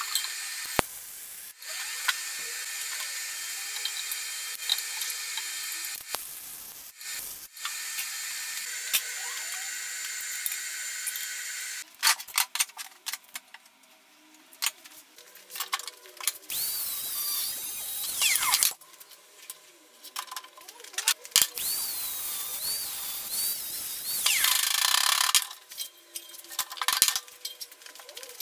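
Metalworking tool sounds from work on steel motorcycle frame parts. A steady whirring runs for about the first twelve seconds, then gives way to scattered clicks and scrapes with two louder rasping stretches.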